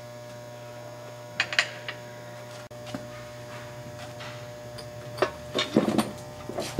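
Steady electrical hum under scattered sharp metallic clicks and knocks, a few at first and a louder cluster near the end, as the manual transmission is worked rearward off the engine on a transmission jack.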